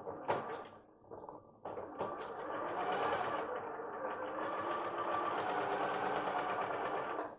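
Computerized sewing machine stitching through lace: a few short starts and clicks in the first second and a half, then a steady run of fast stitching with the motor's whine from about two seconds in, stopping abruptly at the end.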